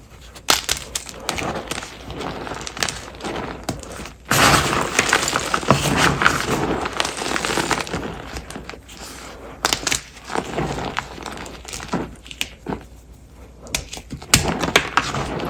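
Blocks of Ader gym chalk (magnesium carbonate) crushed in the hands, crunching and crackling as they snap and crumble into powder. The crumbling thickens into a dense gritty rush from about four to eight seconds in, then goes back to scattered sharp cracks.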